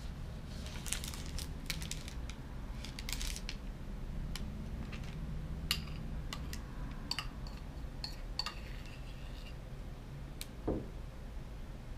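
Metal spoon clinking and scraping against a small bowl and spreading soft batter, in scattered short clicks and scrapes.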